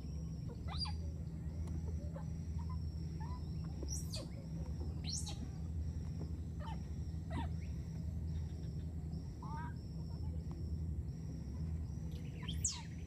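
Birds calling with sharp, quick downward-sweeping notes every second or so. Beneath them are a steady rhythmic insect chirping, about two pulses a second, and a low steady hum.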